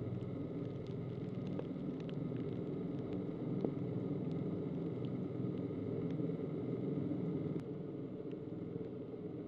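Steady low rumble and machine hum on an airport ramp in heavy rain, with scattered light ticks of raindrops.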